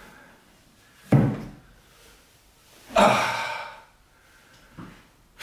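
Two loud hollow thumps about two seconds apart, the second ringing on a little longer, as a large plastic watering can is set down on a wooden table and a person sits down behind it. Two lighter knocks follow near the end.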